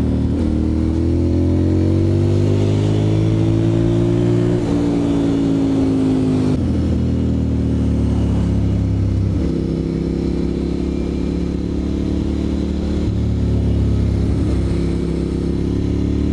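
Ducati Monster M600's air-cooled L-twin engine accelerating hard, its pitch climbing for about four seconds and then stepping with gear changes, with more shifts in engine speed later on as the bike rides on.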